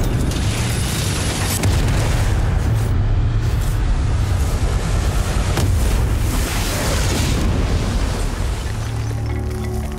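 Cinematic logo-intro sound design: deep booms and a fiery explosion rumble over dramatic music, with a sudden hit at the start and another about a second and a half in, easing off near the end.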